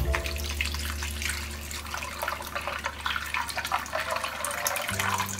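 Water pouring into a bowl of ice cubes, splashing, with a dense patter of small clicks as the ice is wetted and shifts.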